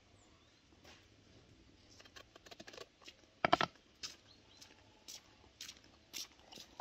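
Green bell pepper crackling and squeaking as its stem and core are pushed in and broken out by hand: a scatter of small crisp snaps, with one louder crack about halfway.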